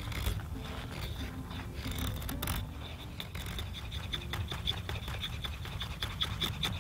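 Deering EDC Bushcraft knife shaving curls off a dry, spalted willow stick: a run of short scraping strokes, coming quicker near the end.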